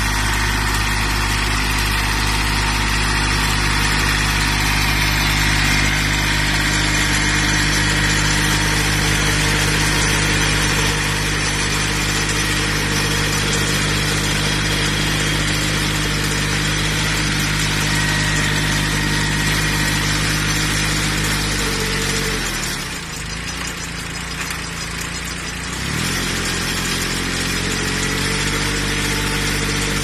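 A 1985 Kubota B6200 compact tractor's small three-cylinder diesel running steadily while it drives a CAEB mini round baler through a hay windrow, the baler's pickup and rollers working. About two-thirds of the way through, the engine note drops and goes quieter for a few seconds, then climbs steadily back up to speed.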